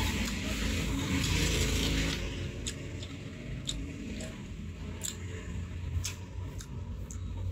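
Close-up chewing of crunchy unripe green mango, a dense crunch for the first two seconds, then scattered wet mouth clicks, over a steady low rumble.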